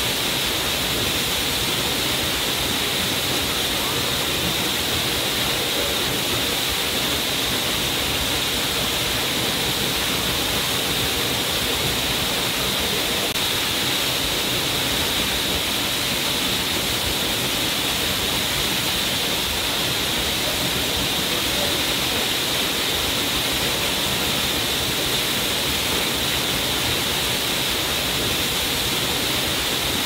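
Waterfall pouring into a rock pool: a steady, even rush of falling water with a bright hiss.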